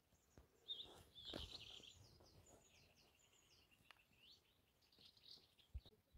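Faint chirping of small birds: a quick run of short, high chirps, with a few soft knocks.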